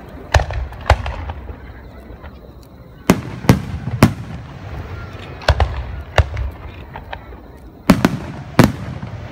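Aerial firework shells bursting overhead: about eight sharp booms at irregular intervals, some in quick pairs, with a low rumble of echoes between them.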